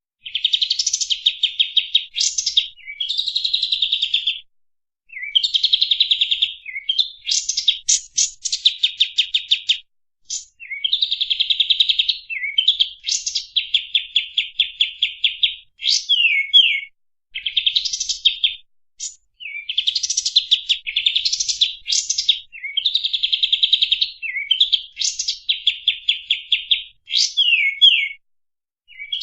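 Kapas tembak bird singing fast, tightly packed trill phrases, each about one to two seconds long, separated by short pauses and mixed with quick upward and downward whistled notes.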